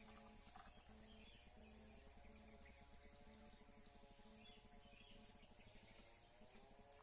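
Near silence: faint outdoor ambience with a steady high-pitched insect drone.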